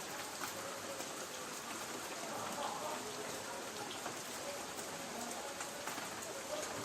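Light rain falling on a tin roof: a steady hiss with many scattered single-drop ticks.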